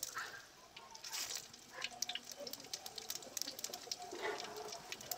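Whole spices frying in hot oil in a brass kadai: bay leaves, cumin seeds and whole garam masala sizzling, with many small scattered pops and crackles.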